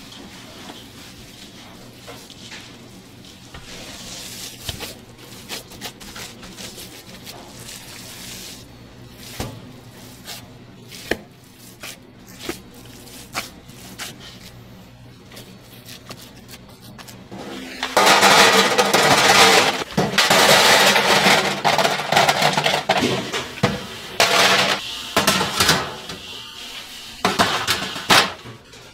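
Dishes and metal utensils clinking in a kitchen, with scattered light knocks over a faint steady hum. About two-thirds of the way in, a loud rushing noise starts and runs for several seconds, then returns in short bursts near the end.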